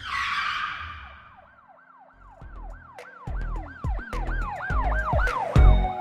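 Channel-intro sound effect: a whoosh, then a siren-like tone sweeping up and down about four times a second over low booms that grow louder, ending in a heavy low hit.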